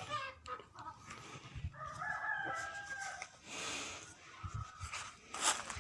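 A sleeping cow snoring in slow, noisy breaths; the loudest comes just before the end. About two seconds in, a drawn-out animal call of about a second and a half sounds behind it.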